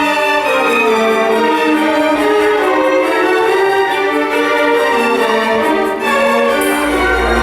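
Orchestral music with a string melody over moving accompaniment; a deep bass note comes in near the end.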